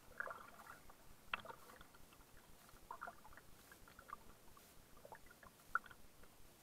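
Faint splashes and drips of a double-bladed kayak paddle dipping into the sea, a handful of soft strokes at irregular intervals, with a sharper splash near the end.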